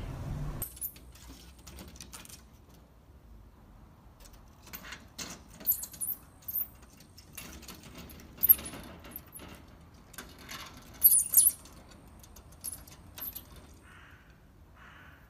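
A cat's claws scratching and clicking on a weathered wooden window frame as it climbs, in scattered sharp bursts, loudest twice in the second half. Two short faint higher sounds come near the end.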